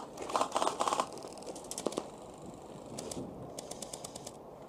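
Airsoft electric rifle fire: quick rapid-fire bursts in the first second, then a fast even string of crisp clicking shots about three seconds in.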